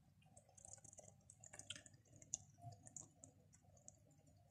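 Faint, scattered small pops and clicks of thick fir-bud sugar syrup bubbling in a stainless steel pot, boiled down close to honey consistency.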